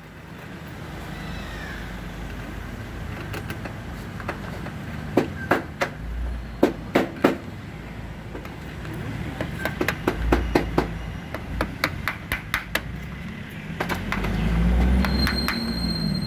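Sharp clicks and knocks of roof-rail parts being handled and seated in the roof channel of a car, in clusters. A low rumble swells several times, loudest near the end, like a passing vehicle.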